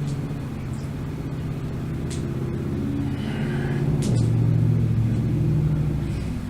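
Motor vehicle engine running close by as a low rumble. Its note changes and it grows louder about four seconds in, then eases off near the end.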